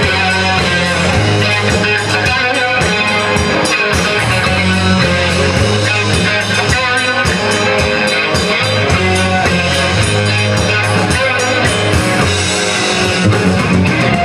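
Live rock band playing: electric guitars, bass guitar and drum kit, with regular drum strikes under the guitars.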